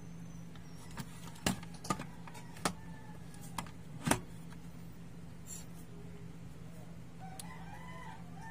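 A handful of sharp clicks and taps in the first half, as metal multimeter probes are moved and pressed onto the radio's circuit board, over a steady low hum. Near the end a cat meows.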